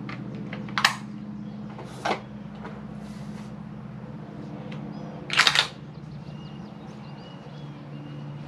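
Metallic clicks and clacks of a Ruger American bolt-action rifle being handled and loaded: single sharp clicks about one and two seconds in, then a louder run of several clacks about five seconds in as the bolt is worked, over a steady low hum.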